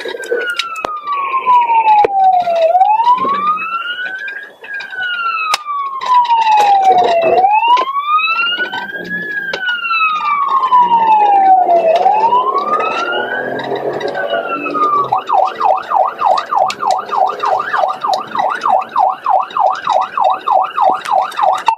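Police car siren on a pursuing squad car, sounding a slow wail that rises and falls about every five seconds, then switching about fifteen seconds in to a fast yelp of about four cycles a second.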